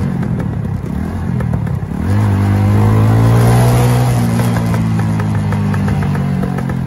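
Motorcycle engine heard from the rider's helmet, over rushing wind noise. About two seconds in the engine note comes up loud as the bike pulls, then holds a steady pitch.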